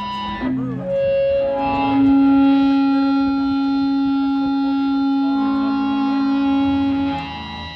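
Electric guitar feedback ringing through the amplifiers between songs. A few sustained tones swell up, and one steady tone is held for about five seconds before the sound drops back near the end.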